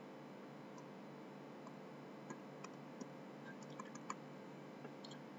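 Faint scattered clicks from a computer mouse and keyboard over a low steady hiss, with a few close together about four seconds in.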